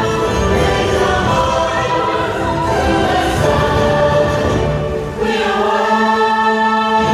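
Orchestral show music with a choir singing sustained chords; about five seconds in the sound dips briefly and a new chord begins with the bass dropped out.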